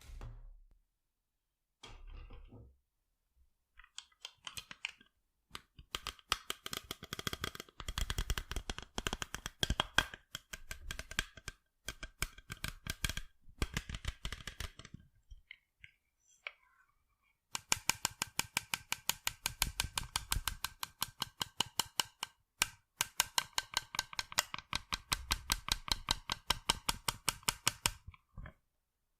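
Fingers tapping quickly on sunglasses in rhythmic runs of sharp little clicks, each with a slight ring. The runs are broken by short pauses and grow longest and densest after about halfway.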